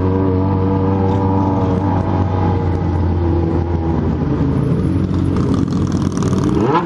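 Yamaha XJ6 N motorcycle's inline-four engine running steadily and loud, with other motorcycles riding alongside. Near the end the revs rise and fall.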